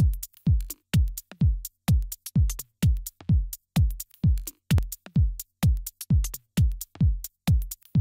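Electronic dance music with a steady kick drum at about two beats a second, each thump dropping in pitch, and crisp hi-hat ticks between the beats.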